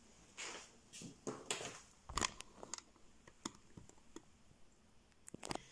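Quiet handling noises: soft rustling and a scattered run of small clicks and taps as a rubber bicycle inner tube and small items are handled.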